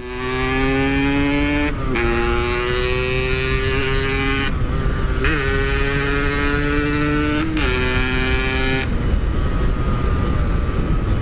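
Yamaha RX-King 135cc two-stroke single with a stock-style packed muffler, accelerating hard through the gears: the engine note climbs steadily in each gear, dipping briefly at each of several gear changes. After about nine seconds the engine note drops away into wind and road noise.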